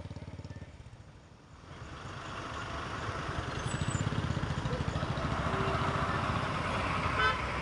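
Motor vehicle engine running close by with a steady low pulse. It fades briefly about a second in, then grows steadily louder as traffic comes up. A brief high chirp sounds near the end.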